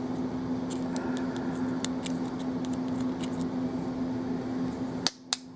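Small metal clicks and scrapes as a tool works a short steel spring out of a pin chamber of a disassembled Abus 83/45 euro cylinder. Near the end a run of sharp, evenly spaced clicks begins, about four a second.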